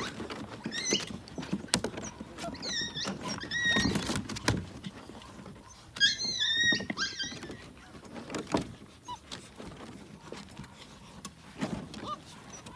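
A litter of young puppies jostling while they eat, with scattered clicks and knocks. Several short, high-pitched squeals and whines come now and then, and the loudest cluster of squeals comes about six seconds in.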